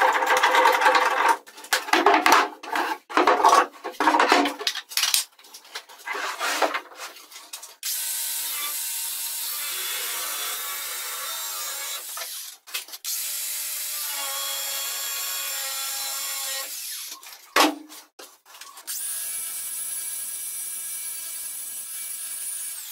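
Rough, irregular rubbing strokes on wood, then an angle grinder running steadily with an abrasive disc, with a high steady whine, shaping the rounded edge of a wooden board.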